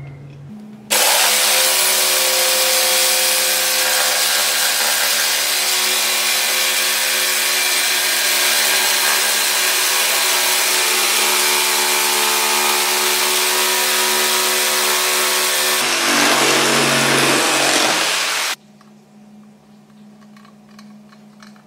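Bosch PST 650 jigsaw running at speed and cutting through a laminate board, a loud steady buzz with a hum of steady tones. The sound changes near the end of the cut and then stops suddenly.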